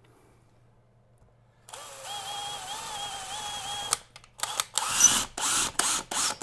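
Cordless drill-driver running for about two seconds, driving a screw into the board, its pitch wavering slightly. It is followed by a quick run of short clicks and knocks.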